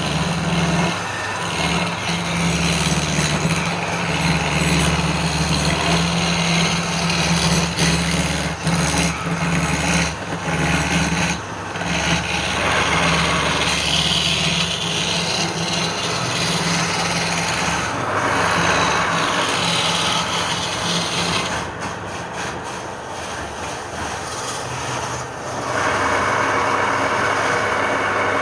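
Wood lathe running with a steady motor hum, and the hiss of a turning tool cutting the spinning wood, swelling at times.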